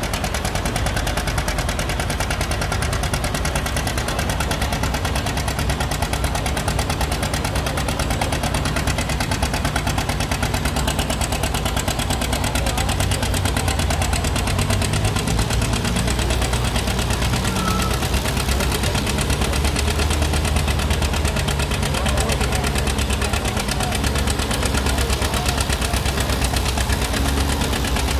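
John Deere 720 diesel's two-cylinder engine running hard under full load, pulling a sled. Its exhaust beats come in a rapid, even pulsing that stays steady throughout.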